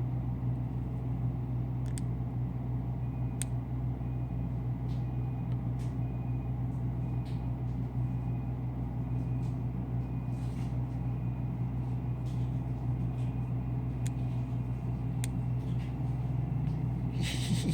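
Car engine idling steadily, with a faint high beep repeating about every half second through the middle and a few scattered clicks.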